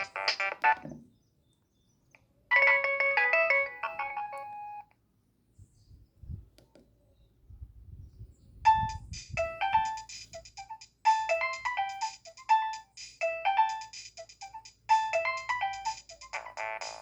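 Nokia 3120 mobile phone playing its ringtones one after another: the end of one tune, a short jingle about three seconds in, then a pause with faint low thumps. A quick beeping melody starts about nine seconds in, and a fuller one near the end.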